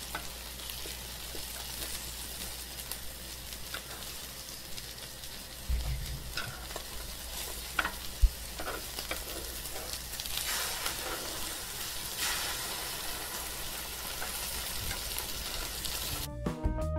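Egg-battered fish fillets frying in shallow oil in a nonstick pan: a steady sizzle, with a few sharp clicks partway through.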